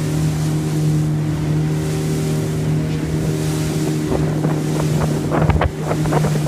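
A 19 ft Sea Runner boat's engine runs steadily under way, heard from inside the cabin over wind and water noise. In the last two seconds a quick run of sharp knocks and rattles comes in.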